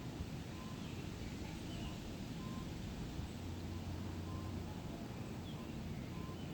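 A steady low rumble of wind in a forest. A bird faintly repeats a short call about once a second, with a few fainter higher chirps.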